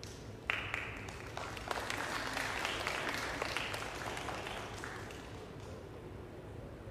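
Applause from many hands clapping. It starts about half a second in, is strongest in the middle and fades away after about five seconds.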